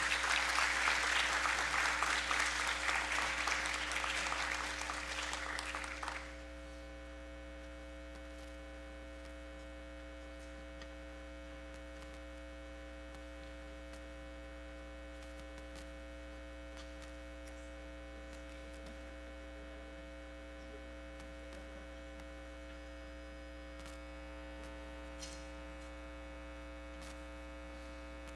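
An audience applauds for about six seconds, and the applause stops abruptly. What remains is a steady electrical mains hum with many overtones.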